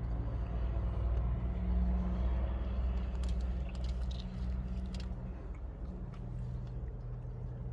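Low engine hum of a nearby vehicle, swelling about two seconds in and then holding steady, with a few small clicks in the middle.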